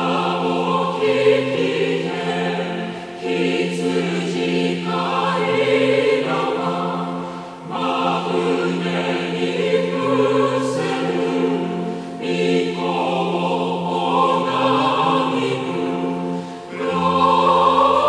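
Choir singing a Christmas hymn in sustained, harmonised phrases, with a short break between phrases about every four and a half seconds.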